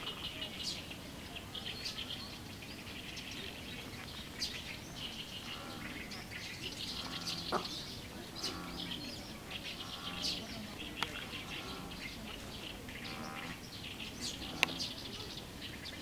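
Small birds chirping and twittering almost without a break, with a few sharp single chip notes and some faint low calls about halfway through.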